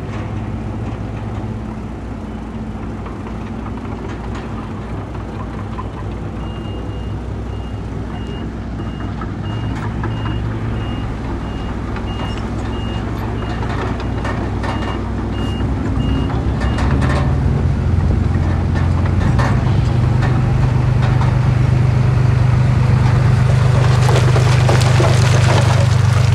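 Heavy diesel earthmoving machinery running: a reversing alarm beeps at a steady pace for about ten seconds, starting a few seconds in. After it stops, an engine revs up and grows louder, and a crackling clatter of loose stone comes near the end.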